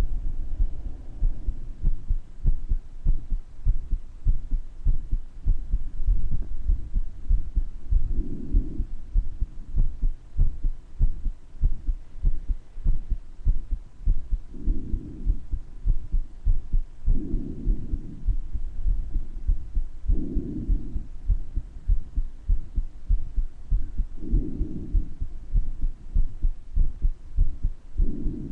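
A person's heartbeat, recorded close against the chest, as a steady run of low thumps; the heart has a murmur. Breaths come in as soft swells of noise every few seconds.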